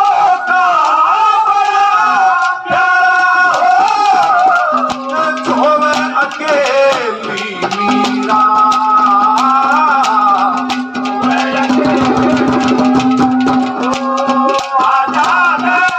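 Haryanvi ragni performed live: a man sings a high, ornamented melody over hand-drum accompaniment, with a steady held note sounding underneath from about five seconds in.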